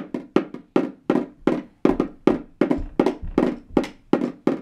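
Toy drum beaten with drumsticks in a steady beat, about three strikes a second.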